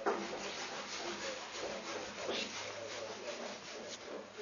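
Cat fur rubbing and rasping against a fleece blanket close to the microphone, in short, irregular repeated scrapes.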